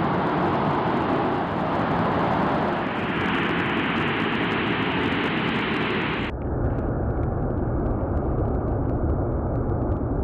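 Continuous rushing noise of gas venting from the active crater of Mount Bromo. About six seconds in, the sound changes abruptly, losing its upper hiss and turning duller and deeper.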